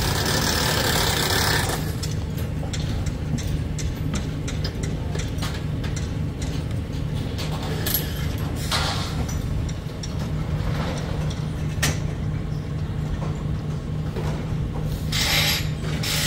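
A heavy engine running steadily, with scattered metallic clicks and knocks. There is a burst of hissing at the start and another near the end.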